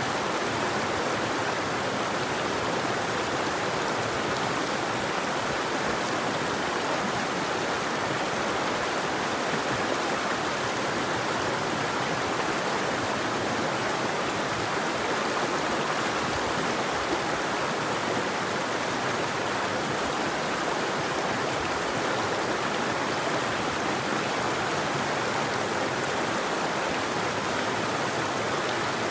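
River water flowing, a steady unbroken rush with no birdsong.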